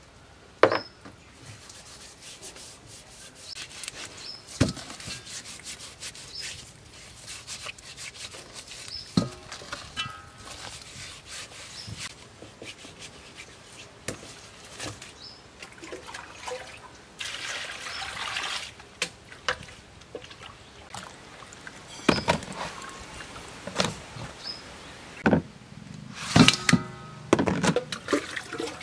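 Hands scrubbing whole snakehead fish with salt in a stainless steel bowl to strip their slime: intermittent wet rubbing and squelching, with several sharp knocks against the metal bowl.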